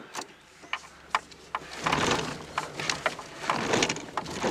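Inside the cabin of a Peugeot 306 with a snapped cam belt: a few sharp clicks and clunks as it is put into reverse, then from about two seconds in a rumbling rattle as the car jolts.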